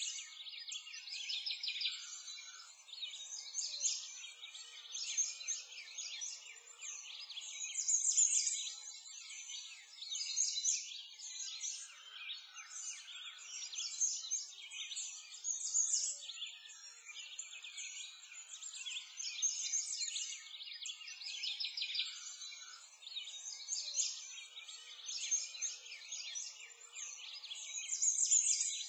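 A chorus of many birds chirping and twittering at once: a dense, unbroken stream of short high calls that swells and fades every few seconds, with nothing low underneath.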